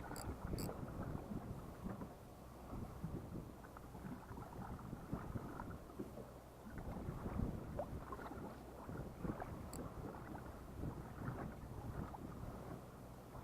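Fishing boat sitting on the sea: water sloshing and lapping against the hull, with wind buffeting the microphone and a steady low hum underneath. A few faint high clicks come near the start and again about ten seconds in.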